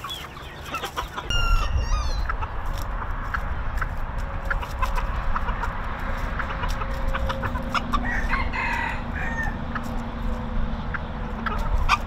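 Chickens clucking, with a rooster crowing about eight seconds in, over a low rumble that sets in about a second in.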